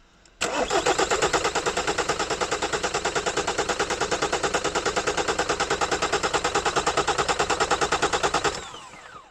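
Car engine cranked over on its starter motor without starting: a fast, even pulsing of compression strokes for about eight seconds, then a falling whine as the starter spins down. The even beat goes with even compression across the cylinders, a healthy engine.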